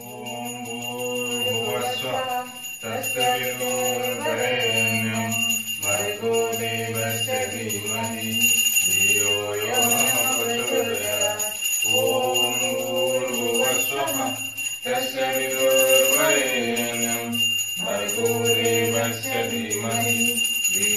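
Devotional Hindu aarti music playing in phrases a few seconds long, with a bell ringing steadily throughout.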